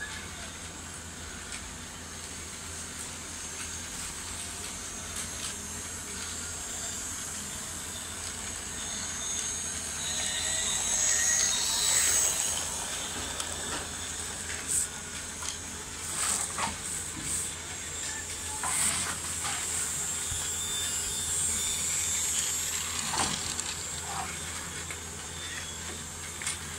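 Battery-powered toy train running on plastic track: a steady high whine and hiss from its small motor, with scattered clicks and knocks. It grows louder about ten seconds in, then settles.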